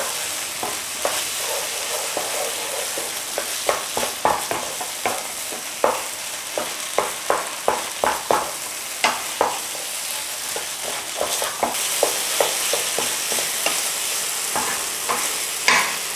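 Chicken in a thick onion and tomato curry paste sizzling in a frying pan while a wooden spatula stirs and scrapes through it, with short knocks of the spatula on the pan about once or twice a second. The tomato purée is being fried to cook out its raw taste.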